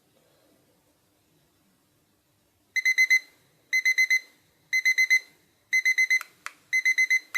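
Digital kitchen countdown timer sounding its alarm as the countdown runs out: fairly loud, high-pitched beeping in quick groups of four, about one group a second, starting a few seconds in. A few sharp clicks sound among the last groups.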